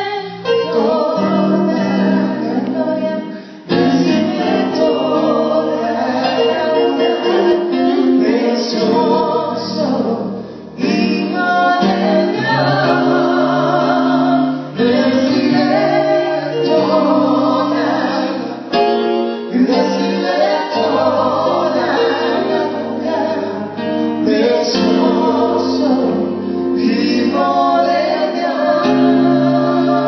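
Live music with singing, played at a sound check. The level dips briefly twice, a few seconds in and again about ten seconds in.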